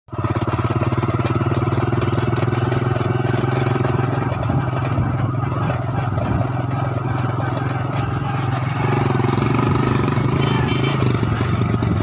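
An engine running at a steady speed, a constant low hum that fades a little for a few seconds in the middle and then comes back.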